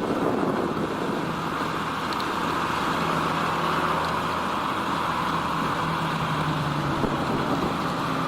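John Deere 3650 tractor's diesel engine running steadily under load while ploughing.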